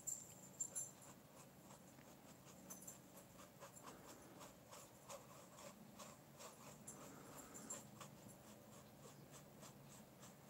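Faint, scratchy ticks of a small watercolour brush dabbing and stroking across textured watercolour paper, with a few sharper clicks in the first second.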